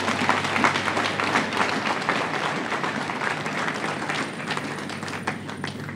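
Congregation applauding, a dense patter of many hands clapping that gradually thins out and fades toward the end.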